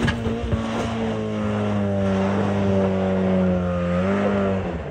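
Lifted off-road Mazda Miata's four-cylinder engine held at high, steady revs under load as the car climbs a steep sandy slope.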